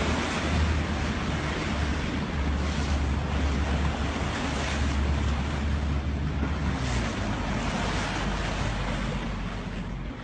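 Wind buffeting the microphone over choppy sea water, with waves splashing and a low steady rumble underneath that eases off about seven seconds in.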